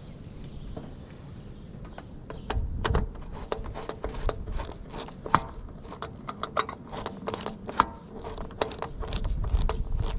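Irregular metal clicks and light scrapes of a socket driver and wrench tightening the clamp bolt on the storm collar around a stainless chimney pipe.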